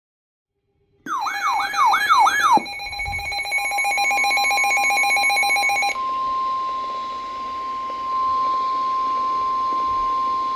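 Emergency weather alert tones: about a second in, a fast warbling electronic tone, then a rapidly pulsing buzz of several tones like a data burst, then from about six seconds a single steady alert tone of about 1 kHz, the long warning alarm tone that comes before a NOAA Weather Radio tornado warning.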